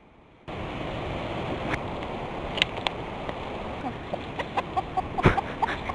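Wind blowing on the microphone starts abruptly about half a second in, with chickens clucking in short soft notes that come thicker over the last two seconds, and a few sharp clicks.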